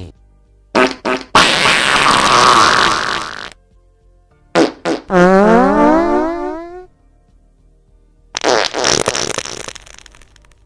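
A string of farts: a couple of quick short ones, then a long noisy one, two more quick blips, a long tonal one that rises in pitch, and near the end a ragged one that trails off.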